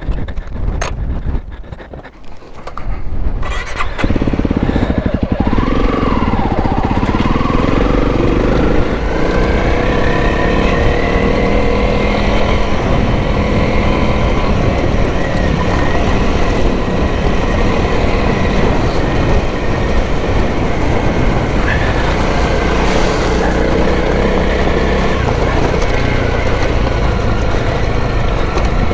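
Honda CRF300L single-cylinder trail bike pulling away about four seconds in, revving up and down through the gears, then running steadily under way. Before it sets off there are a few scattered knocks.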